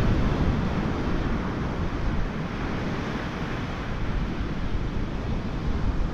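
Surf from a rough sea washing onto the beach, with wind noise on the microphone.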